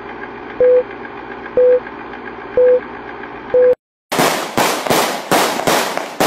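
Film-leader countdown sound effect: a short beep about once a second, four times, over a steady hiss. It cuts off just before four seconds in, and after a brief gap fireworks start going off, two or three bangs a second.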